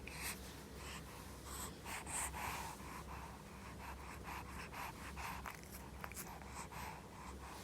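American Shorthair cat snoring and snuffling in its sleep: a string of irregular short breathy noises.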